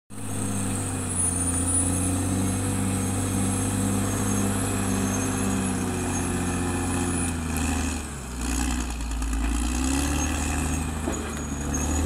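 Caterpillar D6R XL bulldozer's diesel engine running steadily. About eight seconds in its note drops briefly, then climbs back up.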